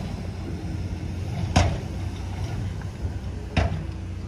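Heavy machinery engine running steadily, with two sharp knocks about two seconds apart.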